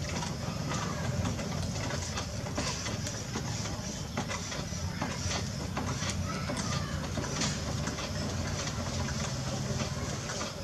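Potter's wheel motor running with a steady low hum while wet clay is coned up on the spinning wheelhead, with scattered short wet clicks and squelches from the hands working the clay.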